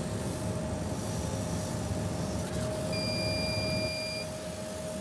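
Laser cutting machine running: a steady whirr with a low rumble and a constant hum, as from its exhaust fan and air-assist pump. About three seconds in, a single high electronic beep lasts about a second.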